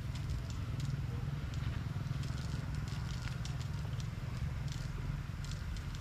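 Water spinach plants being uprooted and gathered by hand: leaves and stems rustling, with scattered crackles and small snaps, over a steady low rumble.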